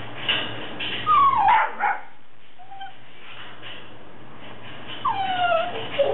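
Puppies whining and yipping: a few short whines falling in pitch about a second in, a faint one near the middle, and another run of falling whines near the end.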